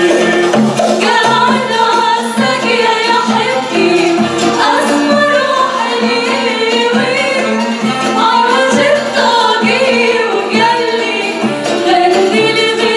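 A mixed choir of men and women singing an Arabic song together, accompanied by oud, classical guitar and violin.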